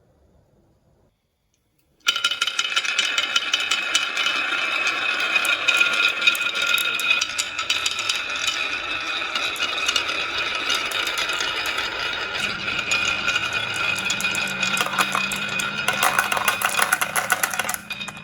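Many marbles rolling and rattling down a marble-run track, a dense run of clicks over a steady rolling ring. It starts suddenly about two seconds in, and a faint low hum joins in past the middle.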